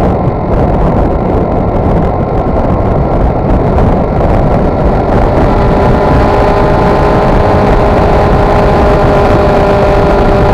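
Wind rushing over the microphone of a moving motorcycle, with the bike's engine droning underneath. About halfway in, the engine settles into a steady note as it holds a constant speed.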